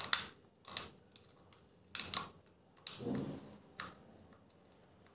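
Small screwdriver turning the screw out of the plastic underside of a Lenovo wired optical mouse: irregular sharp clicks and scrapes of metal on plastic about a second apart, with a duller handling knock about three seconds in, fading near the end.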